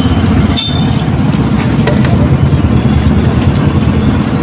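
A loud, steady low rumble of background noise, with a few light clicks and scrapes of puffed rice being stirred by hand in a steel bowl.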